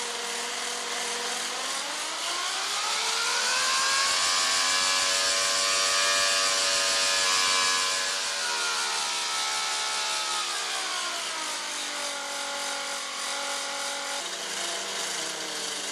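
Prototype 108cc air-cooled two-stroke V12 model aircraft engine running with its propeller turning. It revs up over a couple of seconds, holds high revs for several seconds, then throttles back to a lower steady speed.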